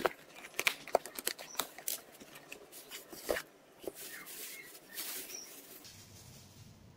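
Packaging being handled as a speaker is unboxed: a run of sharp crackles and rustles of cardboard and a plastic bag being pulled off, softening after about four seconds and dying away near the end.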